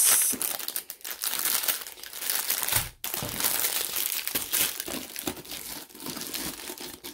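Plastic packaging of a diamond painting kit crinkling and rustling as it is handled and unpacked, in uneven spurts, with a brief break about three seconds in.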